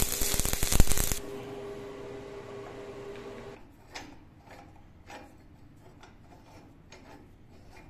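Arc welding crackling loudly for about a second, followed by a steady hum. From about four seconds in, a string of light metallic clicks as the T-handle screw of a handmade steel F-clamp is turned through its nut.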